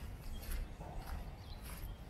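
Footsteps crunching on dry fallen leaves along a forest path, a step every half second or so, over a steady low rumble.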